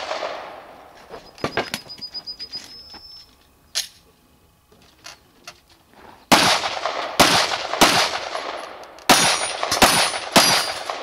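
Pistol shots fired at a practical-shooting stage. One shot comes about a third of the way in, then a string of about five loud shots from a little past halfway, spaced roughly half a second to a second apart, each with a short echo.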